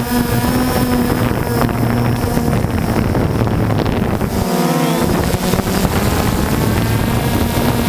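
DJI Phantom II quadcopter's four electric motors and propellers running with a steady whine, with wind buffeting the microphone. About halfway through, the motor pitches swing briefly up and down past one another as the motors change speed, then settle back to the steady whine.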